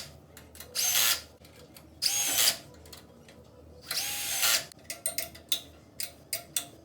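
Power drill driving bolts in three short runs of about half a second each, followed by a series of light metal clicks and taps as parts are handled.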